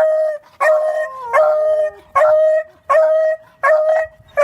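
A dog giving a run of about seven short, high-pitched, howl-like barks in a steady rhythm, each held for about half a second at much the same pitch.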